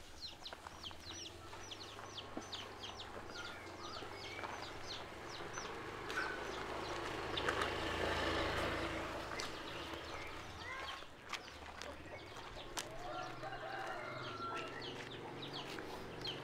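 Free-range village chickens clucking, with rapid, high chirping through the first few seconds. A swell of rushing noise rises and falls around the middle.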